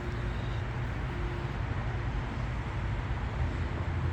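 Steady outdoor background noise: an unsteady low rumble with an even hiss above it.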